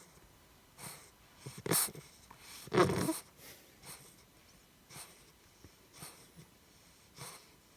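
English bulldog puppy making a string of short, breathy noises, roughly one a second, the two loudest a little before and just after the middle.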